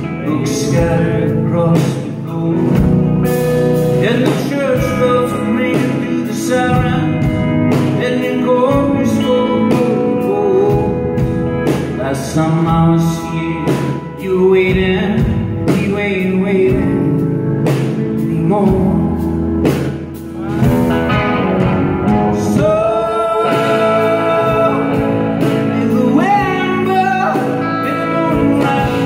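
Live rock band playing at full volume, recorded from the audience: electric guitar and drums, with sung or bending lead-guitar lines over them.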